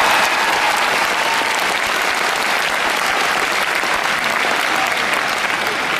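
Large audience applauding steadily, a dense wash of clapping.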